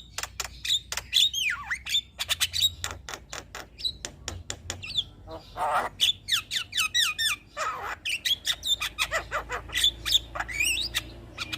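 Javan myna (jalak kebo) singing a fast, varied song of sharp clicks, whistled up-and-down glides and a few harsh squawks.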